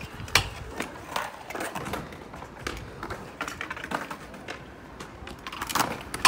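Stunt scooter and skateboard wheels and decks knocking and clacking on concrete: scattered sharp clicks over a faint rolling noise, with the loudest hit right at the end.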